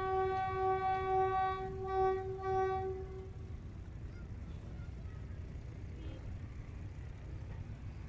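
Diesel locomotive horn (Pakistan Railways RGE-24 5218) sounding one long blast that breaks into two short toots and stops about three seconds in. A low, steady rumble is left after it.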